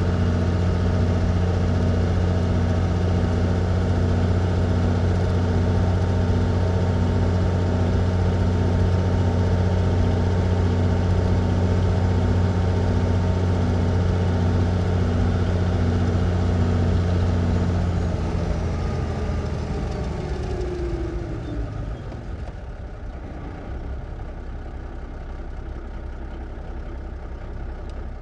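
1954 big rig truck engine, heard from inside the cab, running steadily with a deep hum and a regular pulsing beat. About 18 seconds in it winds down and fades, leaving a quieter low rumble.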